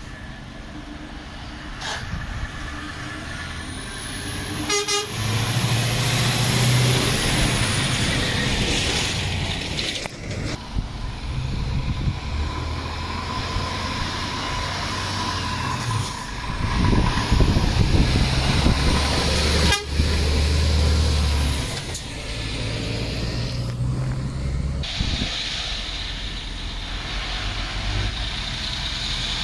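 Lorries' diesel engines running and pulling past, engine pitch stepping up and down, with abrupt breaks where one take changes to the next.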